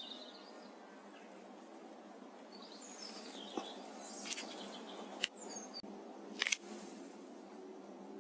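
Small birds chirping over steady outdoor background noise, with a few sharp clicks, the loudest about five seconds in and a quick double click about six and a half seconds in.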